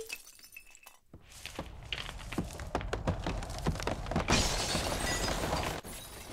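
Re-created sound effects of glacier ice cracking: a sharp crack at the start, then a quick run of separate snaps and cracks as the fracture spreads. About four seconds in, a dense crumbling rush of breaking ice starts and cuts off suddenly just before the end.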